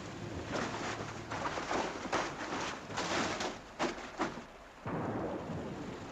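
Rain and wind storm noise, a steady hiss that rises and falls in surges, with a short lull about four and a half seconds in.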